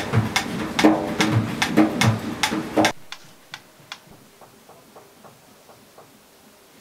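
Rhythmic ringing strikes, about two or three a second, that cut off abruptly about three seconds in. After that comes the faint, even ticking of a mechanical metronome, about two or three ticks a second, fading out.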